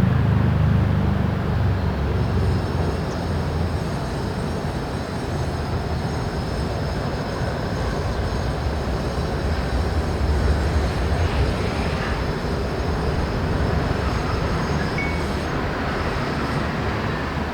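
Steady low rumble of city traffic. Over it, several high, thin, steady tones come in about two seconds in and fade out near the end.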